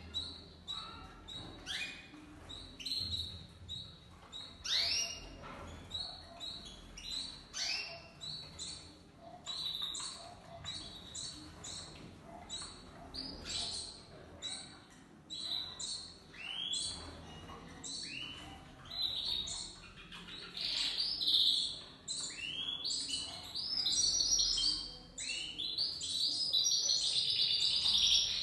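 Domestic canaries chirping repeatedly with short high calls, breaking into a longer unbroken run of warbling song near the end.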